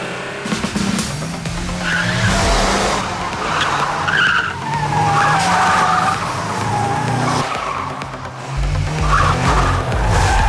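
Mercedes-AMG GT S drifting: its tyres squeal in a wavering pitch over the twin-turbo V8 engine running hard, with music underneath.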